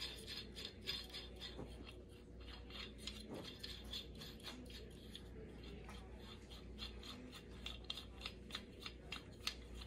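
Plastic knob being unscrewed by hand from the threaded bolt of a hospital bed half-rail clamp: faint, irregular small clicks and scraping of plastic and metal parts.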